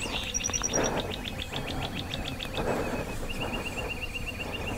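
Small songbirds singing: long runs of quick, high chirping notes, about ten a second, one trill after another, with a short higher series near the start.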